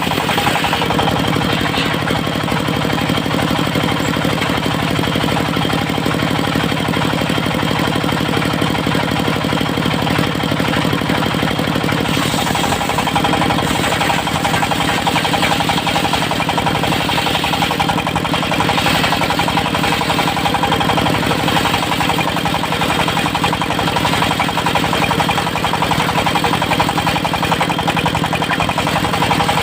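Diesel engine of a mobile circular-saw sawmill running steadily with a rapid knocking beat.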